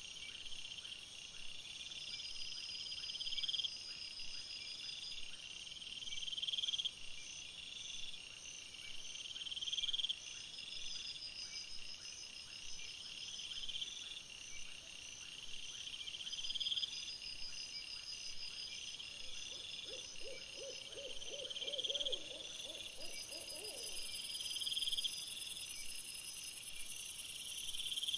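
Night insect chorus: crickets trilling, with a louder pulsing call that repeats about every second and a half. About two-thirds of the way through, a short low trill of rapid notes sounds for about four seconds.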